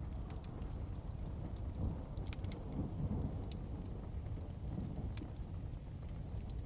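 Ambience of rain with a steady low rumble of thunder, overlaid by scattered sharp crackles and pops from a wood fire.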